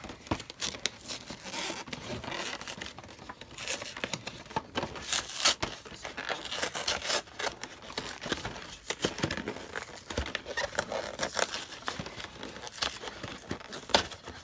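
Cardboard collection box being opened by hand: the top flap pulled open and a cardboard insert slid out, with irregular rustling, scraping and crinkling.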